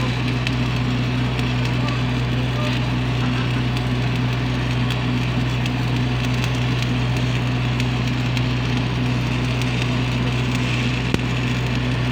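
Shielded metal arc (stick) welding on steel, laying a fillet bead in the flat position: the arc crackles and sputters steadily as the electrode burns, over a steady low hum.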